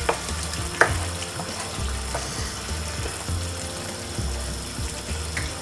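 Wooden spoon stirring yogurt and butter into a thick potato curry in a pan: wet sloshing of the sauce, with two sharp clicks of the spoon against the pan in the first second.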